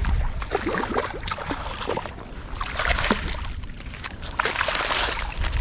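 Water splashing and sloshing as a hooked smallmouth bass is reeled in to the river bank. The splashing grows louder in bursts about three seconds in and again near the end.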